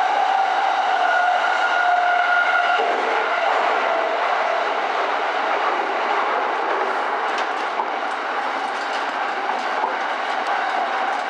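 E231-series electric train running, heard from the driver's cab as it leaves a tunnel. A steady high whine drops slightly and dies away about three seconds in, then light rail-joint clicks come through in the second half.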